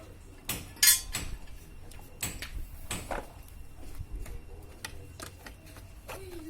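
Irregular sharp metallic clicks and knocks, spaced unevenly, the loudest a little under a second in.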